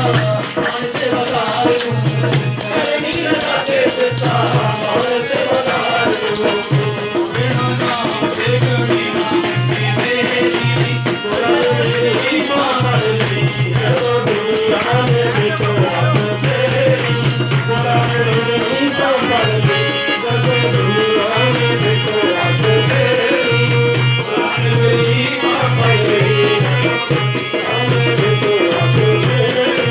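Devotional group singing with harmonium and dholak, over a steady jingling rattle that keeps the beat.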